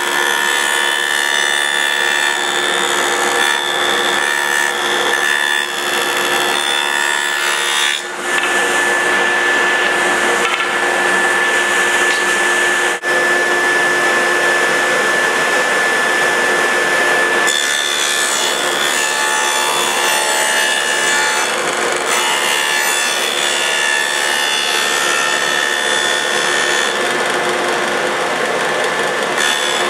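A woodworking power tool running without a break and cutting wood, with a steady motor whine under the cutting noise. The sound dips briefly about eight and again about thirteen seconds in.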